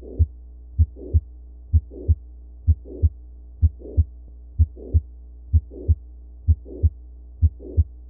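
Heart sounds with a late systolic murmur: paired lub-dub beats at about one a second, each with a murmur rising late in systole and running up to the second heart sound, over a steady low hum.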